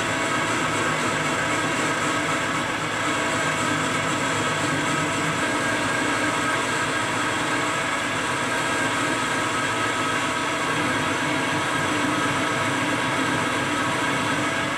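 Enco metal lathe running at a steady speed, with an even whine of several steady tones from its drive, while its carbide tool turns down a cast aluminum ingot.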